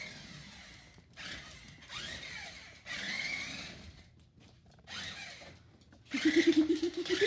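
Small electric motor of a remote-control toy car whirring in short spurts as it is driven in stops and starts. Near the end comes a louder buzzing sound, about a second long, with a rapid pulsing pitch.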